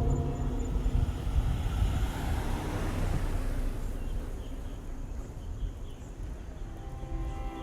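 Outdoor background rumble with a rushing noise that swells about three seconds in and then fades.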